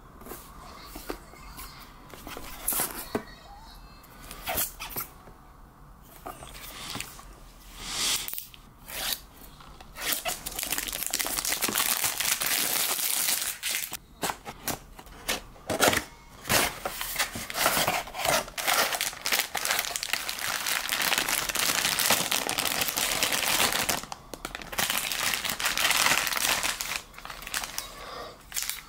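Cardboard figure box and plastic packaging being handled and opened: scattered taps and clicks at first, then long stretches of plastic crinkling and tearing as the box is cut open and the figure is pulled from its plastic bag.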